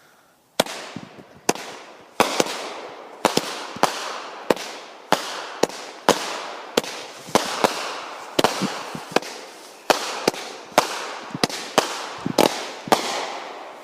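Multi-shot consumer firework cake going off, firing a rapid, irregular string of sharp bangs, about two a second. Each bang trails off into a fading crackling hiss.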